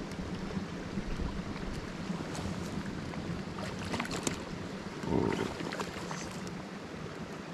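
Wind rushing over the microphone, with a hooked brown trout splashing at the water's surface several times as it fights the line.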